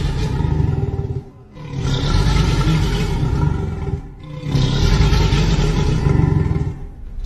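Speculative reconstruction of a Triceratops call: deep, low calls, one ending about a second in, then two more lasting about two and a half seconds each, with short breaks between.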